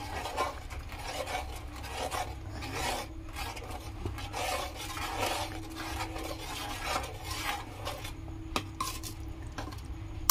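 Metal spoon stirring and scraping a thin, wet masala around a metal frying pan in repeated uneven strokes, as the spice paste is fried with a little water.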